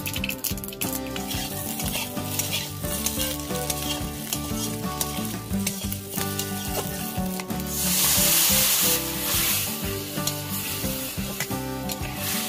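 Small fish frying in hot oil in an iron kadai, sizzling steadily while a spatula stirs them round the pan. The sizzling gets louder and hissier for about a second and a half, about eight seconds in.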